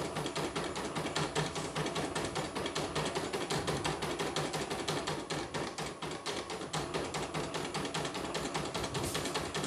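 Portable computerized embroidery machine stitching, its needle mechanism clattering in a fast, even rhythm of several strokes a second.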